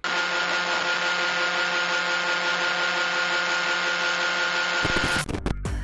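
Steady hiss with a constant low hum and a higher whine inside the wrecked truck's cab just after it crashed into the house. It holds unchanged, then cuts off about five seconds in.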